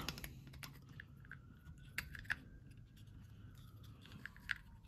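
Small sharp clicks and taps of plastic and metal carburetor parts as the plastic choke cup is fitted and seated onto a Solex carburetor body.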